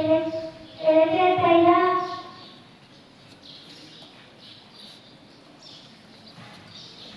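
A boy singing into a microphone, holding two long notes, then breaking off for a pause of several seconds in which only faint high chirps are heard in the background.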